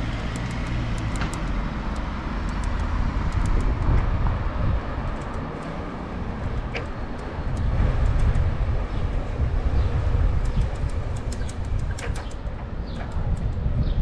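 Wind rumbling on a GoPro's microphone while cycling along a city street, with tyre and road noise and scattered light clicks and rattles.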